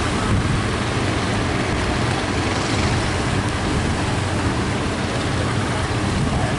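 Steady rushing noise of heavy surf, with a low rumble underneath.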